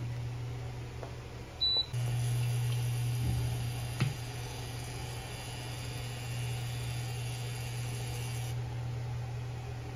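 Steady low hum of a running kitchen appliance, with a short high beep about two seconds in and one sharp clack about four seconds in.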